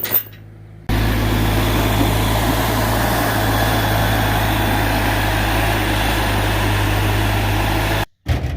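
Engine running steadily at idle: a constant low hum with an even rushing noise over it. It cuts in abruptly about a second in and cuts off abruptly near the end.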